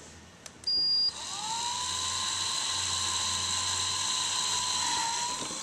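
Electric hand drill boring a hole through PVC pipe. A short, loud high squeal as it starts, about a second in, then the motor spins up to a steady whine that winds down near the end.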